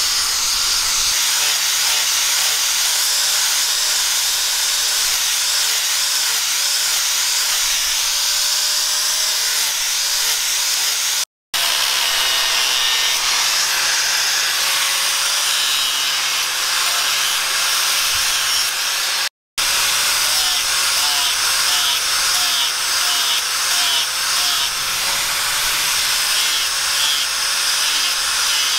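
Electric angle grinder fitted with a sanding disc, running steadily as it sands a knife's wooden handle and steel guard, with a high whine and the hiss of the abrasive rubbing. It breaks off twice for a moment.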